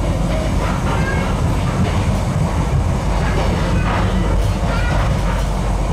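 A passenger sleeper train running on rails, heard from inside the carriage: a steady rumble and rattle of the wheels on the track, with brief high squeaks now and then.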